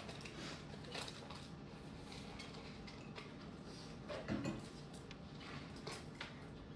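Small scattered clicks and knocks of objects being handled on a table, with a louder thump about four seconds in, over steady room noise.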